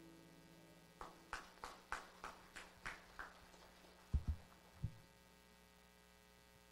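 The last note of a worship song fades out, then about eight footsteps on a hard floor, about three a second and growing fainter, followed by two low thumps of a handheld microphone being handled, over a steady electrical hum.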